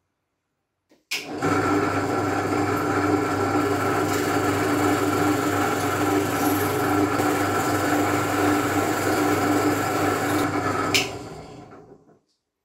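Bench drill press with a wheel in its chuck: switched on with a click about a second in, its motor runs with a steady hum, then it is switched off with a click near the end and winds down.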